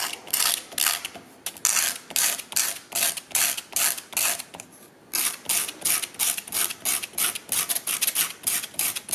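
The tip of a wooden fork's tine scraped back and forth on coarse sandpaper laid on a hard table: a rhythmic, gritty rasping, about two to three strokes a second, with a short pause about five seconds in and slightly quicker strokes after it. The longer tine is being ground down to match a chipped, shorter one.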